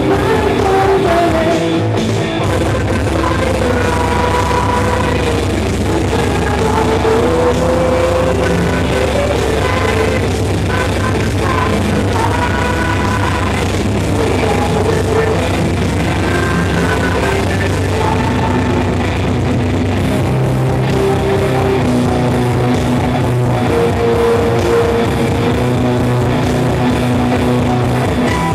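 Melodic metal band playing live: loud distorted guitars, bass and drums, with sustained melodic lines above a steady beat.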